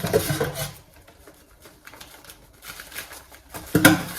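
Rubbing and scraping of product packaging being handled, mostly faint, with a short louder sound at the start and another just before the end.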